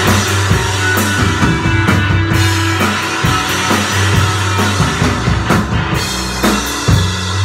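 Rock band playing live: electric guitar over a drum kit, with a busy run of drum and cymbal strokes and one hard accented hit near the end.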